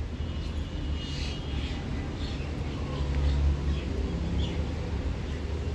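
Faint bird chirps in the tree canopy over a steady low rumble, with a short run of thin high chirps in the first second.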